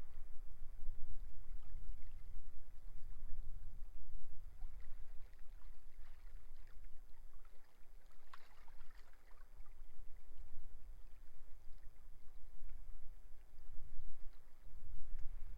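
Sea waves washing on a beach, with strong wind buffeting the microphone as a gusting low rumble. A wave breaks and fizzes about eight seconds in.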